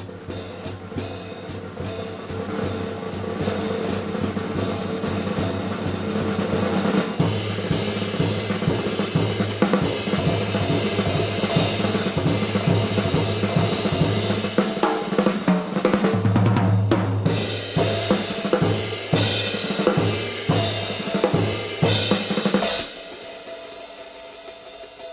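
Live jazz with the drum kit to the fore: snare, bass drum and cymbals played busily, growing denser about seven seconds in and falling away abruptly near the end, leaving quieter held notes. It is an FM radio broadcast taped onto cassette.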